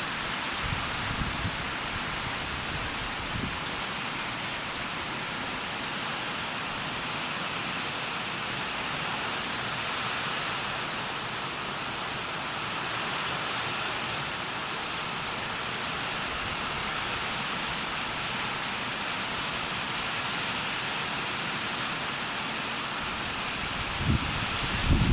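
Heavy rain pouring down in a steady, even hiss. Low gusts of wind buffet the microphone in the first few seconds and again near the end.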